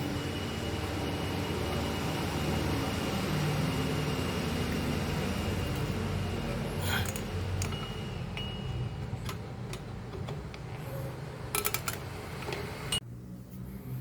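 A steady rushing noise with a thin steady tone, and sharp metallic clicks in the second half, from hand-tool work on the drum brake's shoe springs. The noise drops off abruptly about 13 seconds in.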